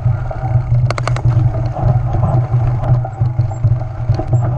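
Wind buffeting the camera's microphone with a steady low rumble while a mountain bike rolls over a grassy trail, with a quick cluster of sharp rattles about a second in as the bike jolts over bumps.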